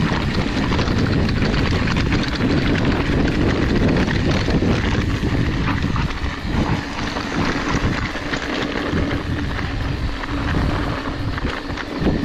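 Mountain bike riding over a rocky, chunky dirt trail: tyres rolling and crunching over rocks, with the bike rattling over the bumps and wind buffeting the microphone.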